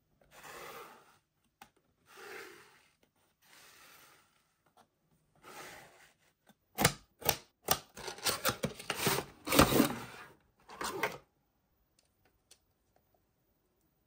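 Cardboard toy box and its plastic packaging handled during unboxing. First come a few soft rustling swishes, then a quick flurry of sharp clicks and knocks with rustling from about seven to eleven seconds in, as the plastic clock is pulled free.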